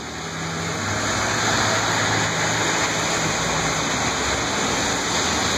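Traffic passing on a rain-wet street: tyres hissing on the wet road, with a vehicle engine's low hum that fades out about halfway through.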